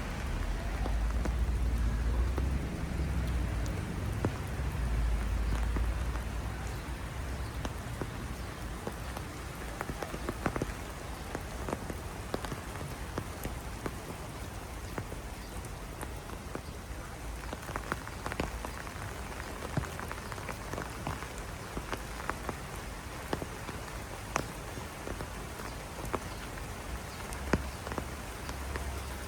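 Heavy rain falling steadily, with many close raindrops pattering and ticking on hard surfaces. A low rumble sits under the rain for about the first six seconds, then fades.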